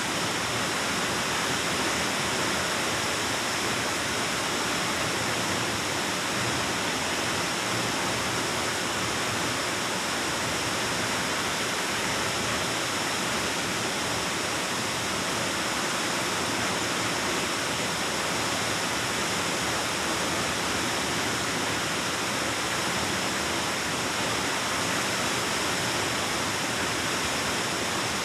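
Waterfall rushing steadily, water falling into a pool inside a cave.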